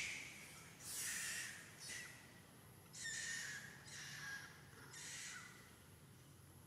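A series of about six harsh, breathy animal calls, roughly one a second, stopping near the end.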